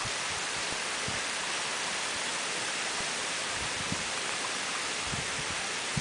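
Heavy typhoon rain pouring onto a flooded road: a steady, even hiss, with a few short low thumps near the end.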